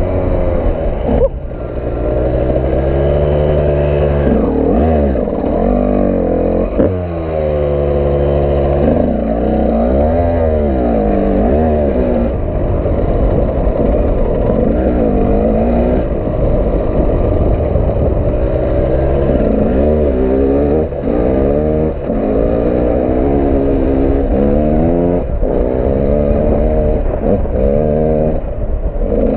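KTM EXC two-stroke dirt bike engine being ridden hard, its pitch rising and falling over and over as the throttle is opened and closed. The throttle is briefly shut about a second in and again around seven seconds.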